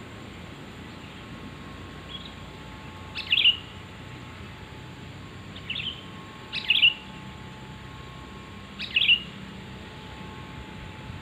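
Sooty-headed bulbul (kutilang) giving short calls, about four bursts a couple of seconds apart, each dropping in pitch, over a faint steady hum.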